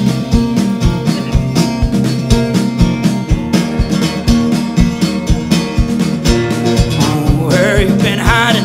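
Live folk-rock band playing an instrumental passage: a steel-string acoustic guitar strummed hard, with steady drum hits and cello underneath. A voice comes in near the end.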